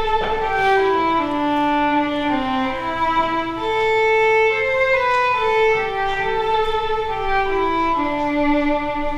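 Offertory music: an instrumental piece played as a slow melody of held notes, one after another, stepping up and down.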